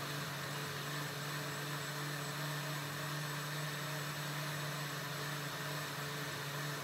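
Oster countertop blender motor running steadily with a high hum, blending a kale smoothie.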